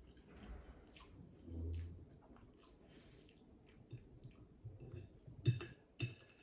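Quiet close-up chewing of soft lasagna, with a few sharp clicks of a fork against the plate near the end.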